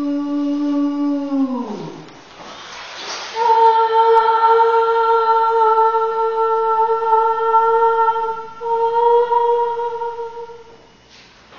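A woman's voice through a microphone holds a long wordless note that slides down and trails off about two seconds in. After a short pause a higher note is held steady for about seven seconds, stepping up slightly near its end.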